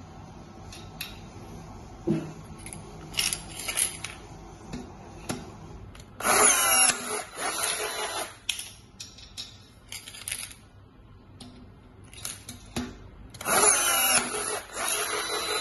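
Power blind-rivet tool running twice, each time for about two seconds, as it pulls and sets a blind rivet in a steel strip: first a countersunk-head rivet, then a dome-head rivet. Between the two runs, light clicks and taps of rivets being handled and placed in the holes.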